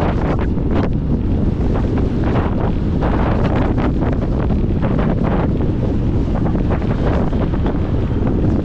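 Wind buffeting a camera microphone on a moving bicycle: a steady low rumble broken by frequent fluttering gusts.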